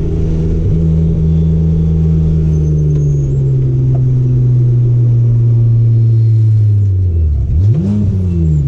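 Race car engine running hard at a high, steady pitch that sags slowly. Near the end the revs drop, surge up quickly and fall away again.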